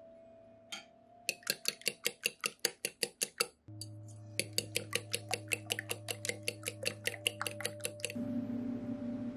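Metal fork whisking beaten eggs in a ceramic bowl, clinking against the bowl about five or six times a second in two runs, with a short break in between, and stopping near the end.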